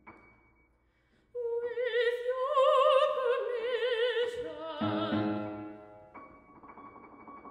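Operatic soprano holding one long high note with a wide vibrato, coming in about a second after near silence. The note fades near the end while the piano sounds softly underneath.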